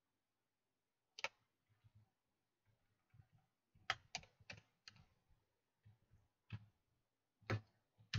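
Computer keyboard keystrokes: a scattered handful of faint taps with pauses between them, a few close together about four seconds in.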